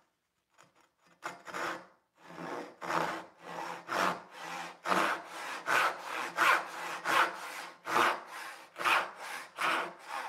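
Rob Cosman joinery crosscut saw cutting across walnut: a few light starting strokes, then steady back-and-forth strokes at about two a second that grow louder as the cut gets going. The saw goes through the walnut with little effort.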